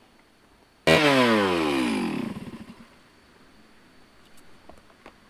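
A small engine cuts in loudly about a second in, and its pitch falls steadily as it winds down over about two seconds.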